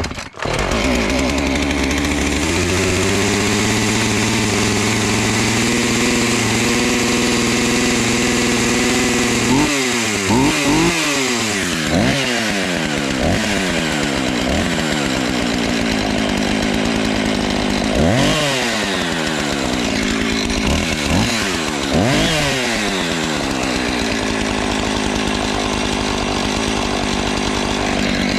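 Two-stroke chainsaw, just reassembled with a new primer bulb, running after a cold start: a steady fast idle for about ten seconds, then the throttle blipped again and again, revving up and dropping back to idle in two groups. It was nearly flooded with choke and now settles to a good idle, which the owner hopes means he has cured its air-leak idling problem.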